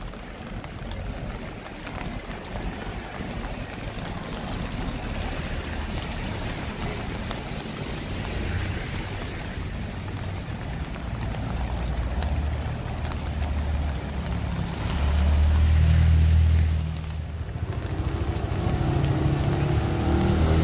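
Rainy street ambience: a steady hiss of rain and wet pavement, with vehicle engines passing close. The loudest pass comes about 15 to 17 seconds in, and another engine hums near the end.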